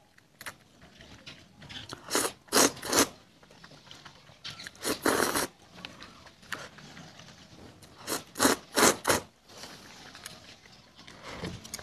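A person slurping noodles in short, sharp sucks: three about two to three seconds in, a longer slurp around five seconds, and another run of three around eight to nine seconds, with quieter eating noises between.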